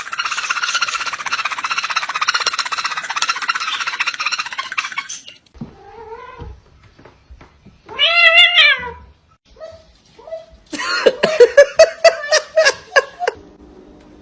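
Cat vocalising: a short meow about six seconds in, a loud drawn-out meow about eight seconds in, then a run of quick, choppy cries near the end. The first five seconds hold a dense, rapid buzzing sound.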